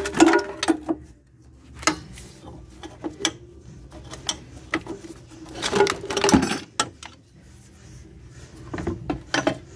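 Metal tools and car parts clinking and knocking as they are handled: irregular sharp clicks and clatters, busiest just after the start, around six seconds in and near the end.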